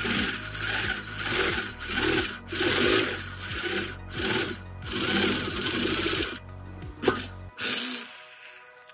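Electric drill boring through a steel square tube with a freshly sharpened twist bit: the cutting noise rises and falls in waves over the motor's steady hum. Near the end it goes quieter as the bit breaks through, with a sharp click and a short burst before the drill stops.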